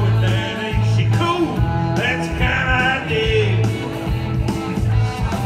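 Country karaoke: a backing track with a steady beat of bass and drums playing loud through PA speakers, and a man singing along into a handheld microphone.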